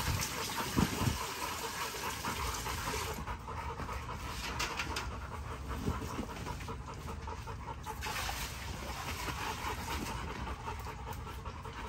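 American bully dog panting rapidly and rhythmically with her mouth open, hot and worked up. There is a short low thud about a second in.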